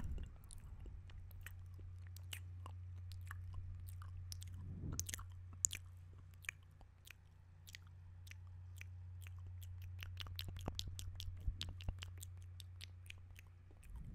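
Close-miked ASMR mouth sounds: many quick clicks and smacks of lips and tongue, over a steady low hum.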